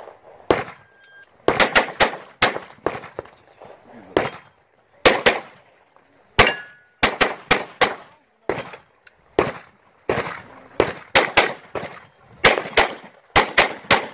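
A handgun being fired rapidly through a practical-shooting course of fire: many sharp shots, mostly in quick pairs and short strings, with brief pauses between them.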